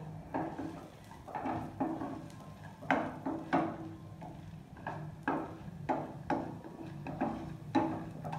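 Wooden spatula stirring dals and dried red chilies roasting in oil in a nonstick frying pan: irregular scraping and tapping strokes against the pan, about two a second, over a faint steady low hum.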